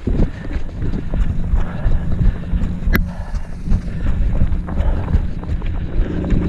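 A runner's footfalls on grass and dirt track with the body-worn camera jostling, over steady wind rumble on the microphone. A single sharp click about three seconds in.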